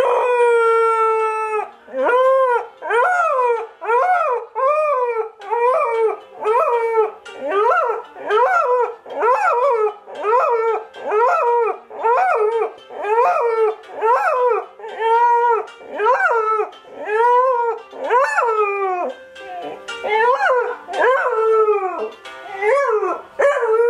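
Cocker spaniel puppy howling along to an alarm: one long held howl for the first two seconds, then a steady run of short howls, each rising and falling in pitch, about one a second.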